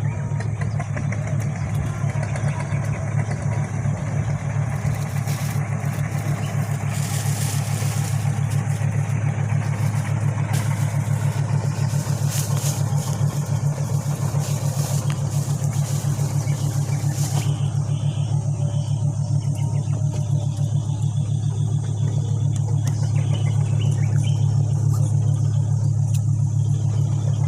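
A large engine running at a steady speed: a deep, even drone with a fast pulse. A hiss rises over it from about five seconds in and drops away after about seventeen seconds.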